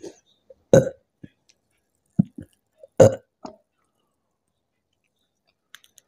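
A woman burping up gas from drinking Coca-Cola: a run of short burps, the loudest about a second in and another about three seconds in, with smaller ones between.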